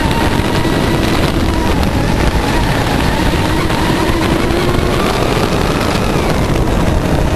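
A 10S electric RC offshore race boat running flat out, heard from on board: a steady motor whine that rises and falls slightly in pitch, over loud rushing water spray and wind.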